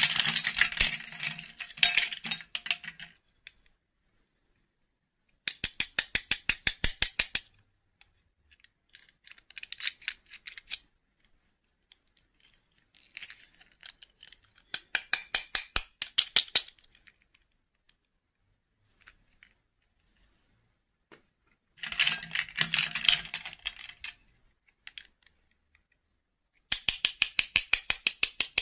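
Small plastic dolls and their snap-on plastic dresses clattering and clicking as they are handled in a bowl, in several bursts with pauses between. Some bursts are rapid runs of even clicks.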